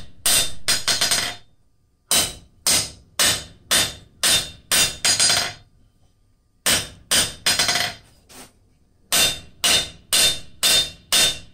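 Hand hammer striking a red-hot flat-bar tong blank on a steel anvil, about two blows a second in runs with short pauses between them, each blow sharp with a little ring from the anvil. The steel is being forged down as the tong blank is shaped.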